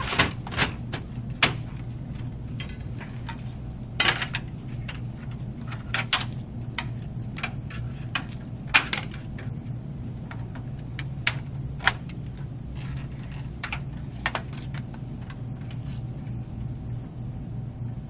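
Scattered clicks and knocks of a computer power supply and its cables being handled and fitted into a PC case, over a steady low hum.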